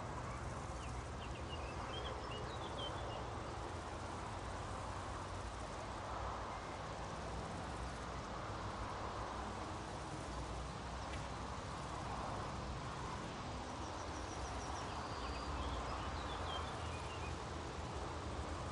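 Meadow nature ambience: a steady soft wash of outdoor background noise, with short high bird chirps about two seconds in and again around fifteen seconds in.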